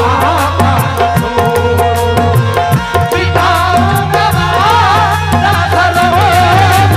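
Live qawwali music: rapid hand-drum strokes over a steady low drone, with a wavering, ornamented melody line above that grows stronger about halfway through.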